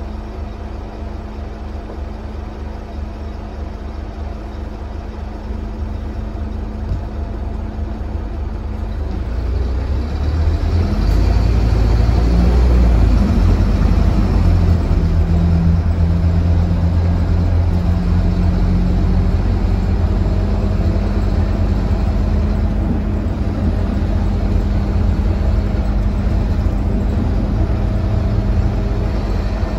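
Scania K320UB city bus's rear-mounted diesel engine heard from inside the cabin: idling with a steady hum, then about nine seconds in revving up as the bus pulls away, and running under load as it drives on.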